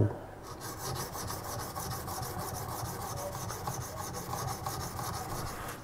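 Steel kitchen-knife blade stroked rapidly and evenly over a Norton fine India abrasive stone on a guided sharpening system, in a steady rasping rub that starts about half a second in. The edge is being ground at 19 degrees per side to carry the burr out to the tip, which has not yet been reached.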